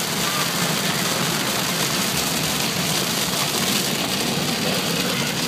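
Steady noise of heavy rain hitting a car's roof and windscreen, heard from inside the cabin while driving, with the engine and tyres on the soaked road beneath it.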